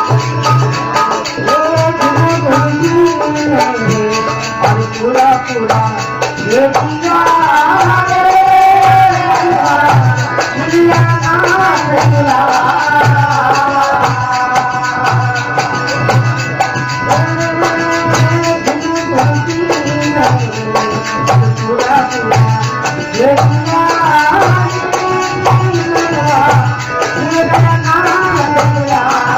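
Marwari folk bhajan music: a steady, evenly repeating drum beat with rattling percussion and a bending melody line above it.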